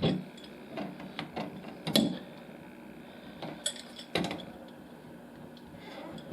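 Metal tools clinking and knocking on a Moen shower valve as a stuck cartridge is worked out with a cartridge puller: three sharp knocks, at the start, about two seconds in and just after four seconds, with lighter clicks between.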